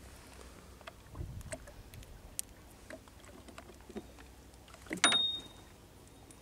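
Scattered light taps and clicks from handling a fishing handline and bait aboard a small boat, with a few low thuds and one louder sharp knock about five seconds in.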